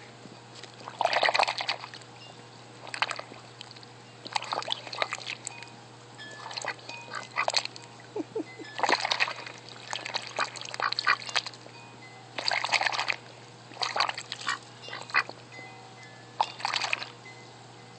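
A dog rooting with its snout in water, snuffling and slurping in irregular splashy bursts every second or two, as it hunts for and eats worms.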